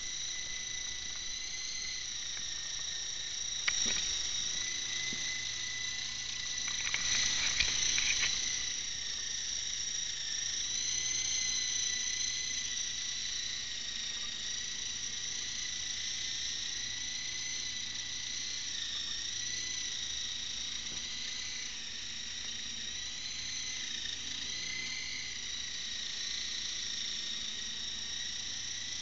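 Radio-controlled model helicopter in flight, giving a steady high-pitched whine that wavers slightly in pitch. There is a sharp click a few seconds in, and a brief louder rush of noise around seven to eight seconds in.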